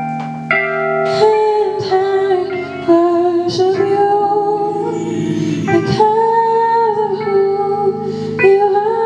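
Worship music: a woman singing held, sliding notes over an instrumental accompaniment.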